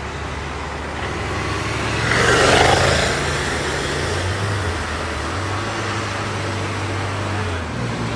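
Ferrari 812 Superfast's V12 engine running at a low, steady idle as the car creeps away from the curb, with a brief louder rush of noise about two and a half seconds in.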